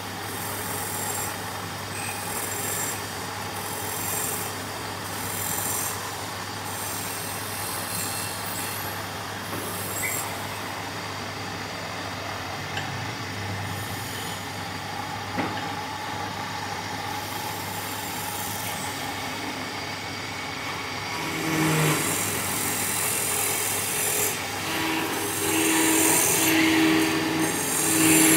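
A wood lathe runs with a steady hum while a tool works the spinning wood in repeated short scraping passes. From about three-quarters of the way through the cutting gets louder and rougher.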